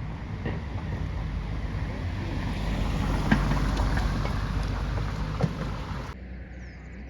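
Wind buffeting the microphone: a rushing noise that swells and then eases, with a few light clicks.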